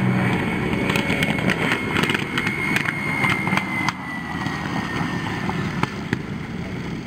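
P-51 Mustang's V-12 engine throttled back as it touches down and rolls out on a grass runway. It is heard as a steady rushing noise, with a faint high whine that slowly falls in pitch as the plane passes, and scattered clicks.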